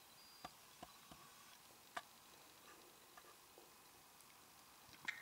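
Near silence: quiet room tone with a few faint, scattered ticks and clicks, the clearest about two seconds in.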